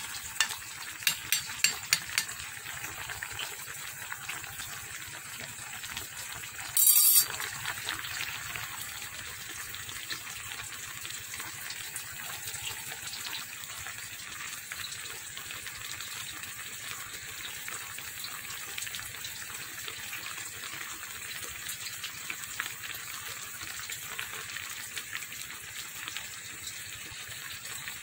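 Tilapia and bok choy in coconut milk bubbling at a boil in a pan: a steady bubbling, crackling hiss, with a few sharp pops in the first couple of seconds. A brief loud noise about seven seconds in.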